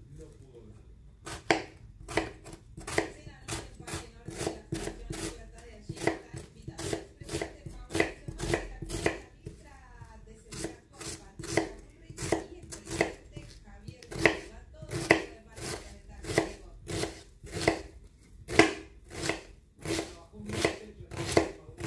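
Kitchen knife chopping on a cutting board: steady, even cuts at about two a second, starting about a second in.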